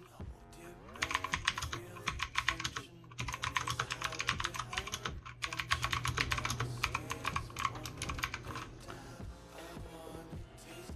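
Fast typing on a Yeyian Spark 2000 mechanical keyboard with clicky Outemu Blue switches: three quick runs of key clicks with short pauses between them, thinning to scattered keystrokes near the end.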